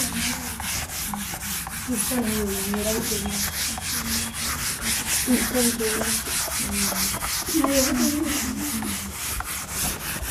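A cloth duster wiping chalk off a chalkboard in rapid back-and-forth rubbing strokes, about four a second.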